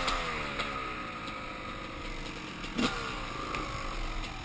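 Dirt bike engine winding down in pitch as the throttle is rolled off, settling to a lower steady run with a brief blip about three seconds in.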